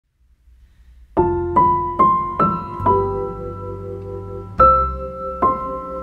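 Background piano music: a slow melody of single ringing notes that begins about a second in, with a brief pause before the next phrase.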